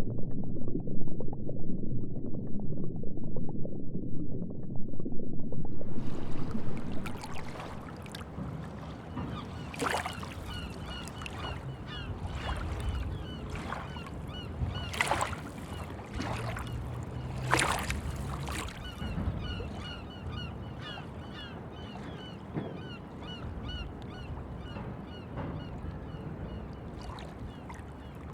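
A low rumble for about the first six seconds, then many birds calling over and over in a quieter background, with a few louder sharp sounds in between.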